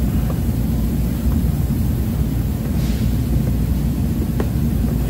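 Handheld electric heat gun running steadily, its fan and hot-air blast making a low rumbling rush as it heats a dented plastic car bumper to soften it. A few faint clicks sound through it.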